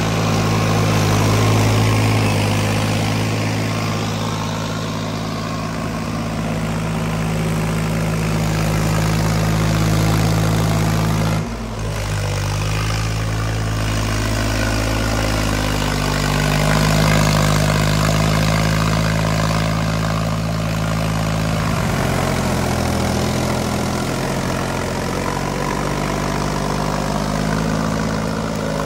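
Mahindra 275 DI XP Plus tractor's three-cylinder diesel engine running steadily as the tractor drives through mud and tall grass. Its pitch shifts a few times, with a brief dip about a third of the way through.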